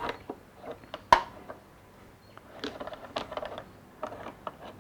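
Workpiece and clamp being handled after a miter saw cut, making small clicks and knocks of wood and metal: one sharp knock about a second in, then a run of light taps and rattles.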